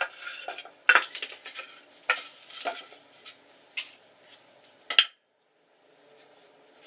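Hammer tapping wooden dowels into drilled holes in a pallet-wood board: about five sharp, irregularly spaced strikes, the loudest about a second in and about five seconds in. The sound cuts off suddenly just after the fifth strike.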